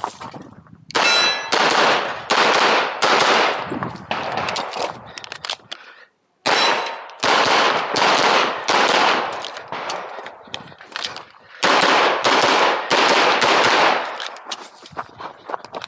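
Rapid 9mm pistol fire from a CZ Accu-Shadow 2: quick strings of shots, many in close pairs, each with a short echo. There is a brief break about six seconds in.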